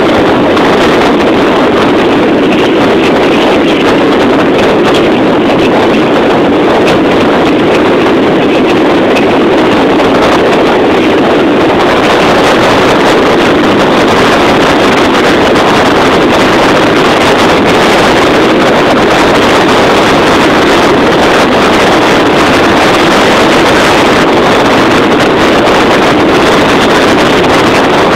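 Loud, steady noise of a moving vehicle, engine and road noise mixed with wind buffeting the microphone.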